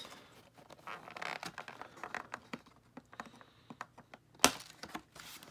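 Plastic packaging crinkling and clicking as a small doll figure is worked free of its clear plastic box insert, with a run of small irregular clicks. About four and a half seconds in comes one sharp click, the loudest sound, as small cutters snip a plastic tag fastener holding the figure in.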